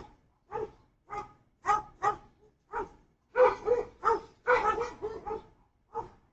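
A dog barking repeatedly at an intruder on the porch: a run of short, sharp barks, about two or three a second, some in quick pairs.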